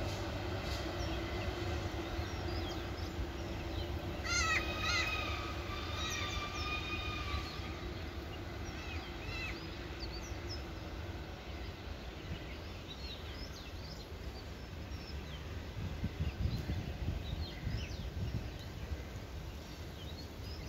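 A train rumbling and humming as it recedes, fading over the first half, with birds chirping and calling; a longer bird call stands out about four seconds in.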